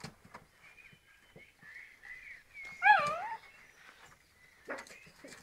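Eight-week-old springer spaniel puppies whining and yipping as they play-fight, with one loud wavering yelp about three seconds in.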